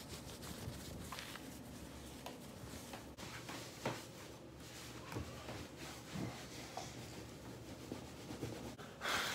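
Towel rubbing over a wet Standard Poodle's coat: faint, soft scrubbing with a few small knocks and a short louder rustle near the end.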